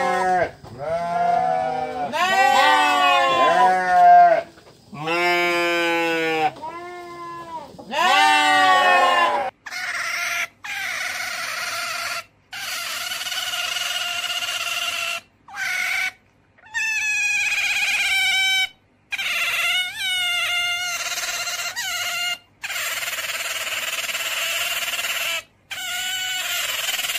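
Sheep and lambs bleating, several long bleats. Then, from about nine seconds in, a beaver's high, steady whining cries in stretches of a few seconds, broken off abruptly several times.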